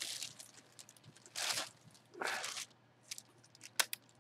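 Clear plastic bag around a jersey crinkling in two short bursts as it is handled, with a sharp click near the end.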